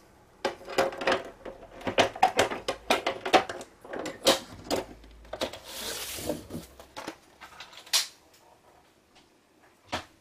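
Handling of a plastic scoring board and cardstock on a table: a quick run of clicks and taps, then a short scraping slide about six seconds in and a couple of single knocks near the end.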